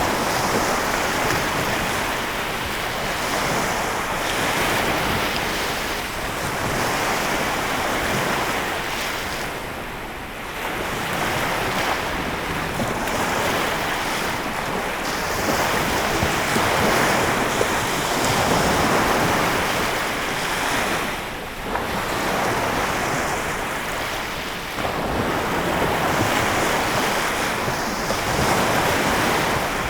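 Lake Michigan waves washing in, a continuous rush that swells and eases, dipping briefly about a third of the way in and again past two thirds. Wind buffets the microphone.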